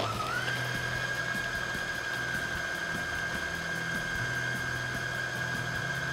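Electric food chopper switched on, grinding onion, garlic and ginger. The motor spins up with a whine that rises over the first half second, then runs steadily.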